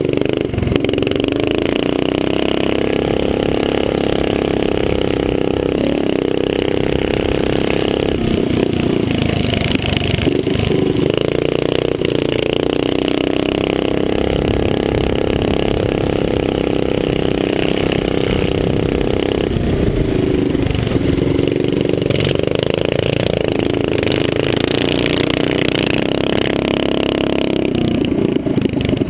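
Small single-cylinder mini-bike engine running hard at high revs, heard close up, backing off briefly three or four times and then picking up again as the rider works the throttle around the track.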